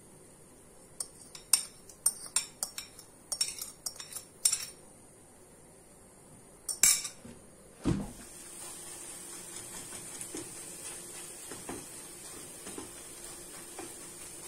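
Dishes and metal cutlery being handled and set down, with a quick run of sharp clinks and clatters, then a few more. Near the middle comes a soft thud, and after it a steady hiss with a few light clicks.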